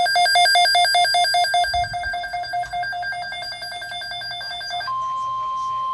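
Rapid electronic beeping, about eight pulses a second, for nearly five seconds. It then switches abruptly to a single steady high tone, the 1050 Hz alert tone of an NOAA Weather Radio emergency broadcast.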